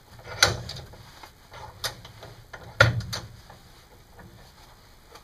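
A steel lawn mower blade being handled and re-clamped in a bench vise: a few sharp metal knocks, the loudest about half a second in and just before three seconds in.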